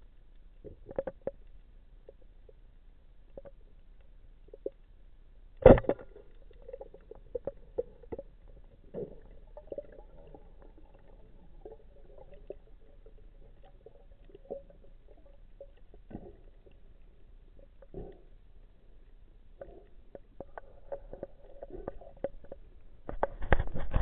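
Muffled underwater clicks and knocks, the loudest a single sharp knock about six seconds in. A rushing water noise builds near the end.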